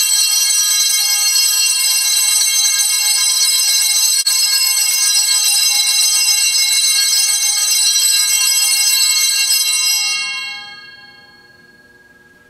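Altar bells rung without a pause for about ten seconds, a bright, loud, many-toned ringing that dies away near the end. They are the Sanctus bells rung at the elevation of the host during the consecration.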